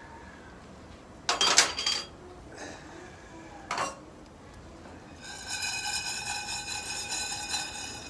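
Metal cookware clanking: a loud clatter about a second in and a short clink near four seconds. For the last few seconds a steady metallic scraping with ringing overtones follows, as a small saucepan is slid across the steel grill grate of a fire pit.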